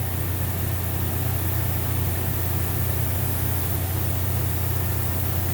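A steady low engine hum under an even rush of air, as compressed air blows through the waste-oil tank's hose once the tank has run empty of oil.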